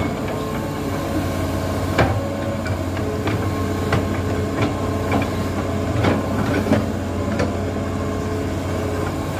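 Hitachi Zaxis 210-5G excavator's diesel engine running steadily under working load as the machine swings and reaches out its boom. A series of sharp metallic knocks comes about every two-thirds of a second from about two seconds in until near the end.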